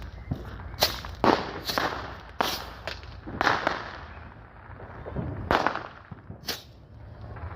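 Consumer fireworks going off: about eight sharp bangs and pops at uneven intervals, several with a short trailing crackle or echo.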